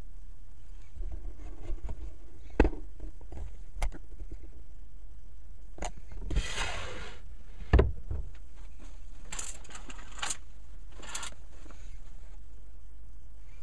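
Handling noise from a hand-held camera at a glass vivarium: a few sharp knocks and clicks and short rustling scrapes over a low steady hum, the longest scrape as a hand brushes close to the microphone.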